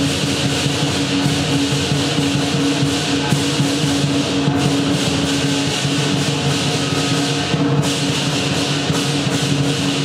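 Lion-dance percussion band playing: a drum beating with cymbals crashing, loud and continuous.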